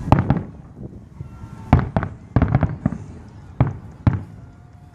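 Aerial fireworks shells bursting: a run of sharp bangs, some in quick clusters and some single, with short pauses between them.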